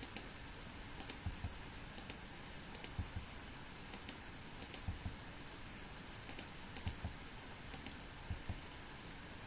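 Scattered clicks of a computer mouse and keyboard, often in pairs a moment apart, over a steady faint hiss.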